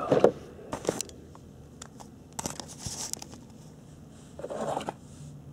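A small cardboard box being handled among foam packing peanuts: a few sharp knocks as it is picked up and set down, then a scraping, crinkling stretch about two and a half seconds in.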